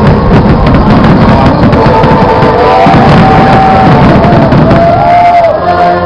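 Loud fireworks-show music with drums, over a dense run of rapid low fireworks booms and crackle.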